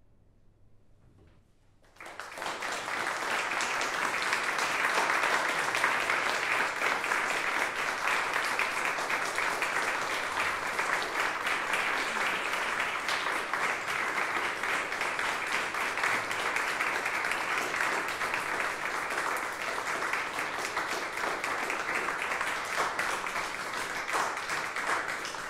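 Small seated audience applauding, breaking out suddenly about two seconds in after a short silence and running on steadily.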